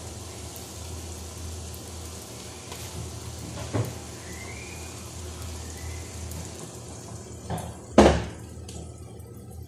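Kitchen clatter: a few sharp knocks of pots or utensils, a small one a few seconds in and the loudest about eight seconds in, over a steady low hum.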